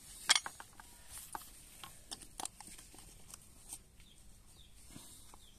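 Metal screwdriver prying and scraping at a chainsaw's recoil starter pulley and plastic starter cover, working loose a starter rope jammed between the metal and the plastic. Irregular clicks and scrapes, the loudest a sharp click about a third of a second in.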